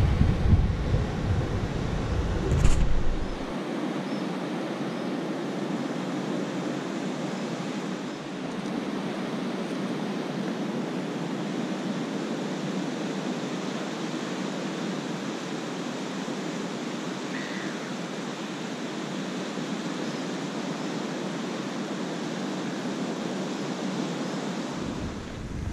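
Wind buffeting the microphone for the first few seconds, then a steady wash of ocean surf breaking on the shore.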